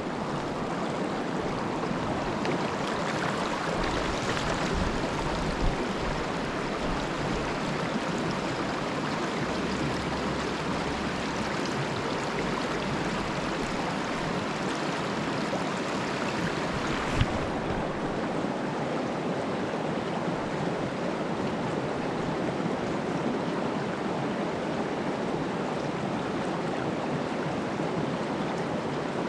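Mountain stream water rushing steadily over rocks, with two short knocks, one about five seconds in and one about seventeen seconds in.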